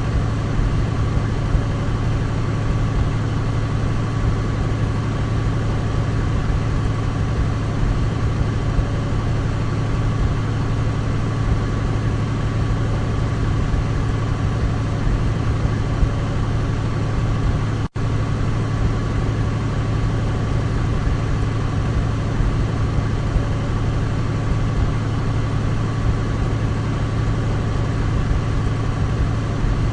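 Douglas DC-3's twin radial piston engines droning steadily, with a deep low hum and a faint steady whine above it. About eighteen seconds in, the sound drops out for a split second.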